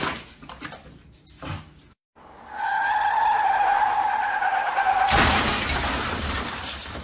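Canister vacuum cleaner running with a steady high whine over a rushing airflow. About five seconds in, the whine gives way to a louder, airier rush.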